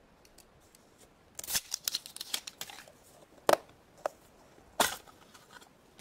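Plastic toy packaging being handled and opened by hand: a burst of crinkling about one and a half seconds in, then three sharp clicks or snaps over the next two seconds.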